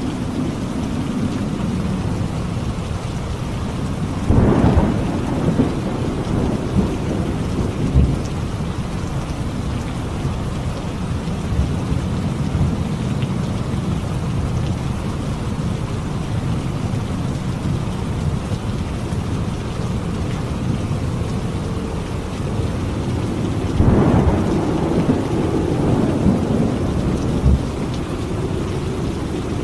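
Thunderstorm: steady heavy rain with a low rumble, and two louder claps of thunder rolling off, one about four seconds in and another near the end.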